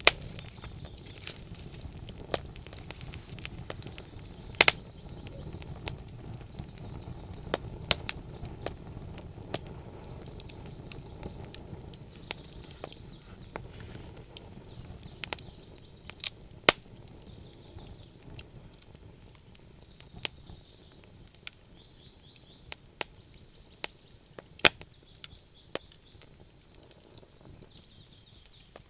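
Campfire crackling, wood popping at irregular intervals over a low steady rumble, with two loud snaps about four seconds in and again near the end. Faint bird chirps can be heard behind it.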